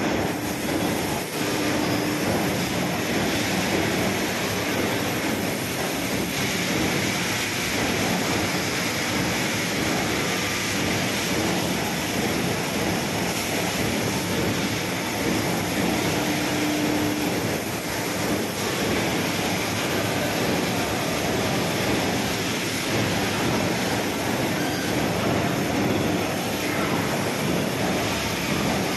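Amada EML Z3510NT CNC punch-laser combination machine running: a steady, dense machine noise with no distinct punch strokes standing out, and a short low hum rising out of it twice.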